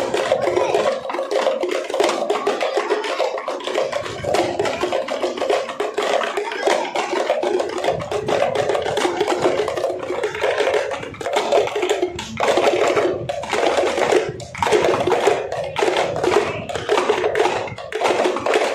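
A group of parai (thappu) frame drums beaten with sticks in a fast, dense rhythm played together. Later on, the strokes come through as more separate, accented beats.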